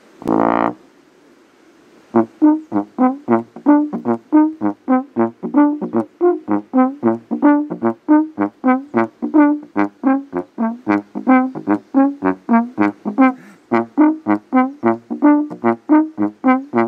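Slide trombone played solo: one short note, then after a pause a long run of short detached notes, about three a second.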